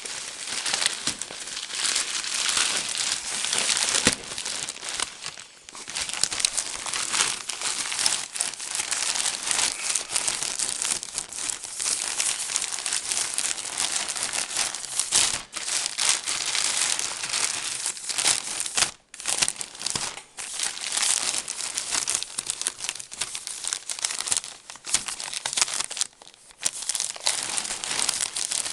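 A parcel's packaging being torn open and crumpled by hand, continuous crinkling with brief pauses about 5, 19 and 26 seconds in.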